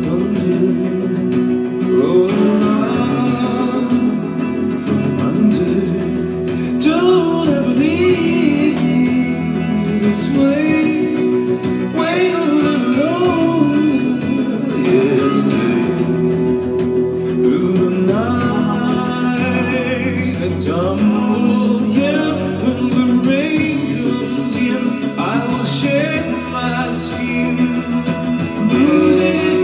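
A synth-pop rock song playing: a man singing over guitar and a full band backing.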